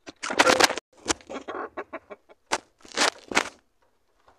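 Hens in a coop clucking and squawking in a run of short bursts, loudest in the first second.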